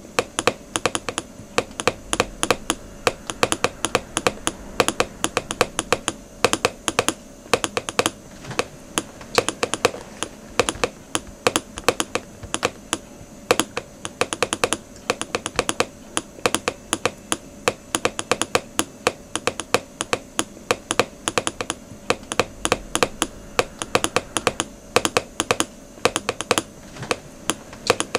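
Rapid, irregular clicking like keys being typed on a keyboard, several clicks a second without a break, over a faint steady hum.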